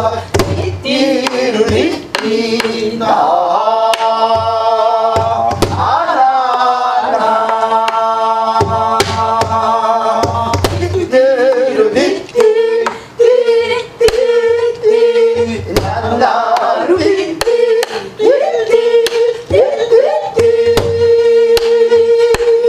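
Gueum, wordless Korean folk-singing syllables, sung in long held notes that bend in pitch, to the beat of a buk barrel drum struck with a stick.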